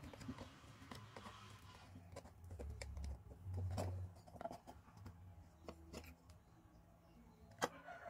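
A thin knife blade scraping and clicking as it pries the aluminium LED board out of a plastic LED bulb housing, with one sharp click near the end as the parts come apart.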